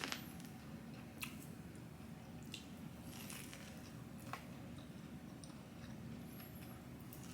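A person eating a hotdog: faint chewing with a few soft mouth clicks.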